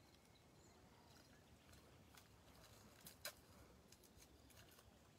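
Near silence: faint outdoor background, with two soft clicks close together about three seconds in.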